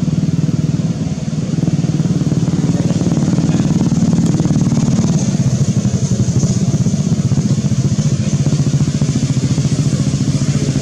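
A small engine running steadily: a low rumble with a fast, even pulse that holds at one speed throughout.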